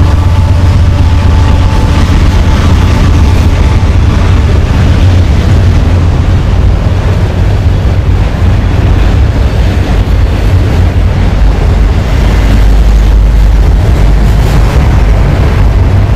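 Train rolling past close by: a loud, steady low rumble with dense noise throughout.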